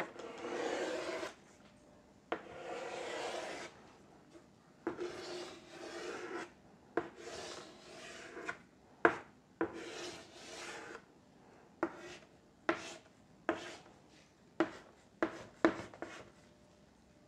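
Chalk scraping on a chalkboard as shapes are drawn: several long strokes about a second each, then in the second half a run of short, sharp strokes as dashed lines are marked.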